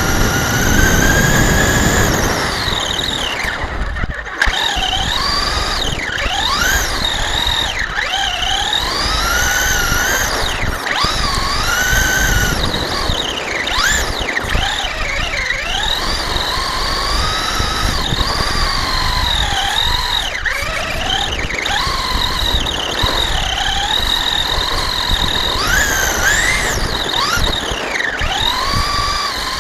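Electric Traxxas Stampede RC truck driving, its motor and gears whining in pitches that rise and fall again and again as the throttle is worked, over a rough rushing noise from the running truck.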